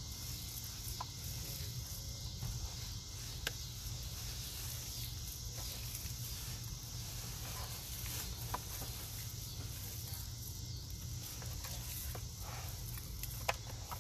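Hand squeezing and kneading thick wet powder paste in a plastic bowl, soft squelching with a few faint clicks, over a steady outdoor hiss and low rumble.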